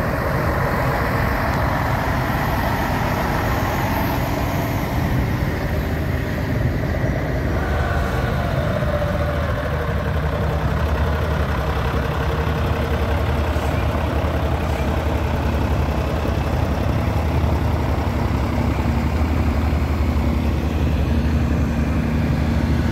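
A heavy vehicle engine running steadily, a low hum that grows a little stronger in the second half.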